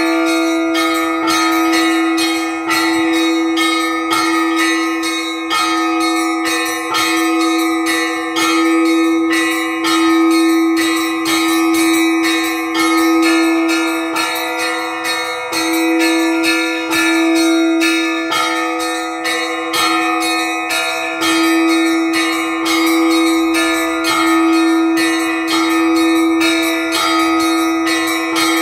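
Orthodox church bells rung by hand in a simple repeating peal: a deeper bell swelling about every second and a half under a quick, continuous chime of smaller bells.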